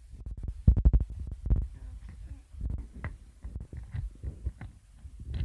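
Small plastic toy pieces handled close to the microphone: a series of soft, irregular knocks and clicks, with a quick cluster of clicks about a second in.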